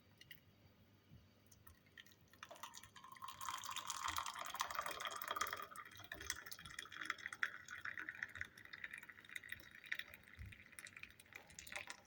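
Hot water being poured into a cup, the pouring sound rising in pitch as the cup fills. It starts about two seconds in and stops abruptly near the end.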